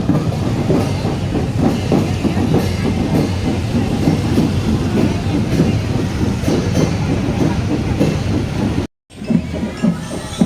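Marching drum band drums playing a fast, dense cadence of many overlapping strokes. The sound cuts out abruptly for a moment about nine seconds in, then the drumming resumes.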